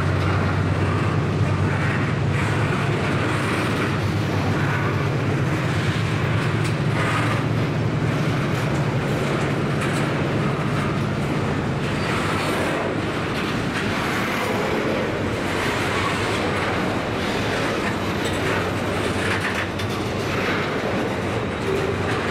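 Freight train of tank wagons rolling past, its steel wheels clattering on the rails. A low drone under it fades about halfway through.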